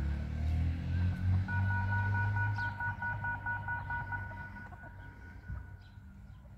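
Low engine rumble fading away over the first four seconds or so, with a steady high two-tone whine joining about a second and a half in.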